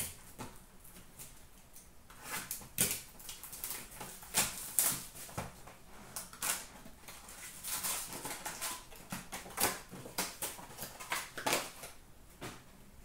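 A 2018-19 Upper Deck Artifacts hockey card box being opened by hand and its foil packs pulled out and stacked: a string of irregular crackles, rustles and scrapes of cardboard and foil wrappers.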